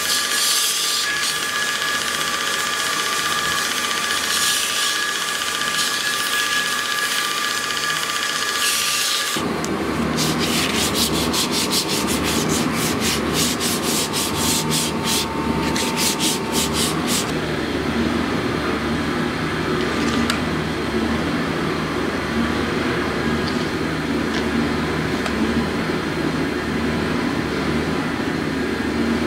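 Bench belt sander running with a thin wooden strip pressed against its belt: a steady whine over sanding hiss. About nine seconds in the sound cuts abruptly to a lower rumble, with a quick run of rubbing strokes, about three or four a second, for several seconds before it settles into a steady rumble.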